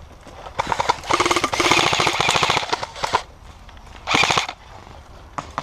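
Airsoft rifle firing full-auto: one long burst of rapid shots lasting about two and a half seconds, then a short burst about a second later, with a few single clicks near the end.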